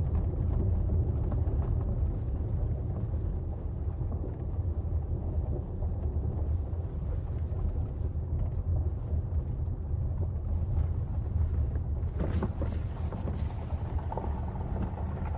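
Car driving along a gravel road: a steady low rumble of engine and tyres mixed with wind buffeting the outside-mounted microphone. A few scratchy gravel crackles come near the end, and the sound cuts off suddenly.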